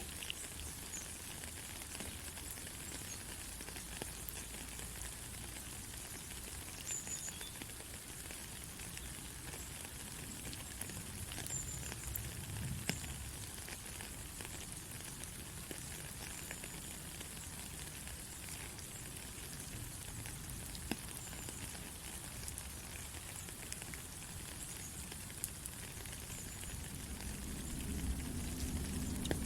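Steady rain: an even high hiss with scattered ticks of single drops. A low rumble builds near the end.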